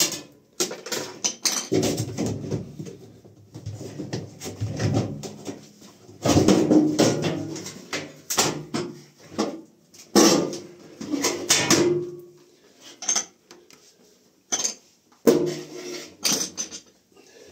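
Irregular knocks and clatter of an LG front-loading washing machine's loading door and its hinge being worked loose and lifted off, with the loudest rattles about six and ten seconds in.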